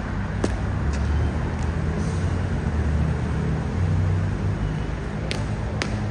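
Drill shoes striking a concrete floor: a few sharp footfalls about half a second apart as a marcher steps off, then two sharp stamps near the end as she halts. A steady low outdoor rumble runs underneath and is the loudest sound.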